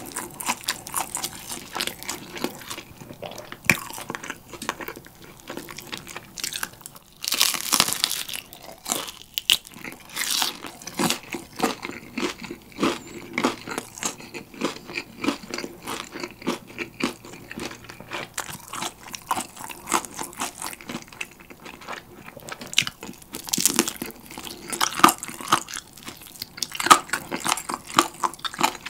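Close-miked biting and chewing of crispy fried chicken: a dense run of crunches as the fried crust and skin break, with louder bursts of crunching about seven seconds in and again about twenty-three seconds in.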